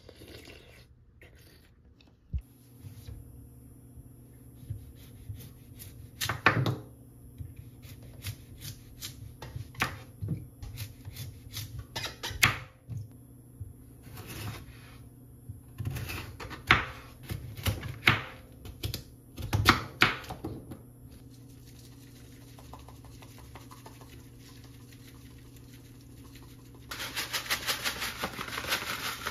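Kitchen knife cutting through Korean radish on a wooden cutting board: irregular sharp knocks of the blade hitting the board, some louder than others. Near the end comes a steady hiss of dry granules, salt, pouring from a bag onto radish cubes in a bowl.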